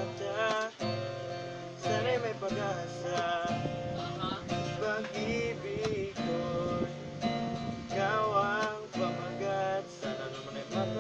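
Classical guitar strummed in chords, with a man singing along.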